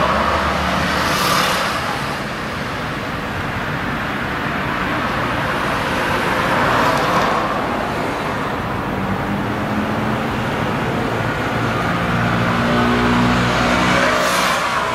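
Road traffic passing close by: a constant rumble of vehicles, with one passing about a second in, another around seven seconds in and a third near the end.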